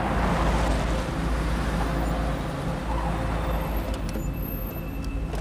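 Several sedans' engines running and tyres rolling on the road as the cars close in and pull up around another car, with a few light clicks near the end.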